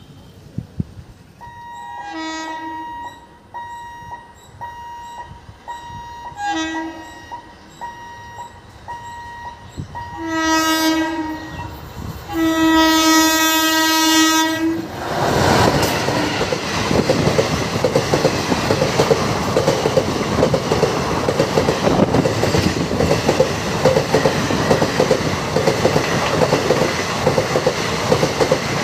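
Indian Railways express train led by an electric locomotive: the locomotive's horn sounds three short blasts and then one long blast of about two and a half seconds as it approaches. The locomotive and coaches then pass close by with a loud rumble and a rapid clickety-clack of wheels over the rail joints. A faint steady high tone sounds under the first blasts.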